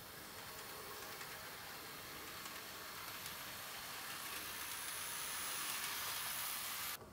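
A steady hiss that grows slowly louder and cuts off suddenly near the end.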